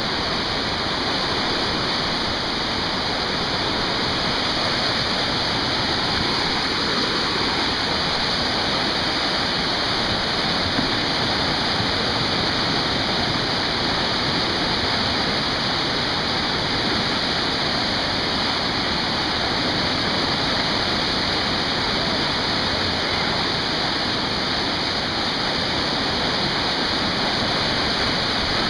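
Whitewater rapids rushing down a concrete-lined artificial whitewater channel: a steady, unbroken noise of churning water.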